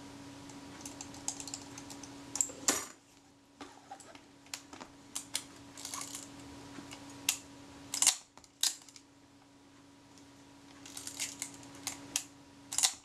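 Scattered small clicks and taps from hands handling and adjusting a Kodak Retina IIC folding rangefinder camera, over a faint steady hum.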